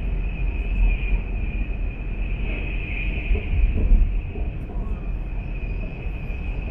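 Cabin noise inside a high-speed train running at speed: a steady low rumble with a steady high-pitched whine on top.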